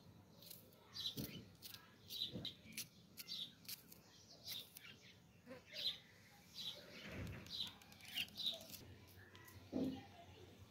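Birds chirping over and over in short, high chirps, with scattered clicks and a few soft low thumps.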